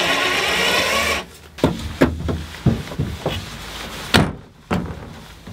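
A handheld power driver runs for about a second and stops abruptly. Then come a string of sharp wooden knocks and clicks as a cabinet door is pushed against its newly fitted catch and swung to test it.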